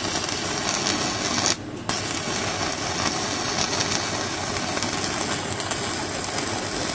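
Stick-welding arc from a Stanley Star-4000 mini DC inverter welder burning a 10-gauge electrode at full current: a steady crackle and sizzle. It drops out briefly about a second and a half in, then picks up again.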